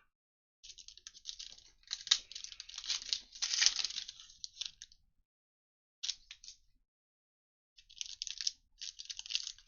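Plastic wrapping on trading-card packs being crinkled and torn open, in bursts of crackling with two short silent gaps near the middle.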